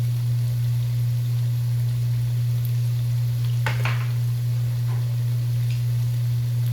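A steady low hum, with a faint sizzle of dough frying in hot oil under it and a brief scrape or clink about three and a half seconds in.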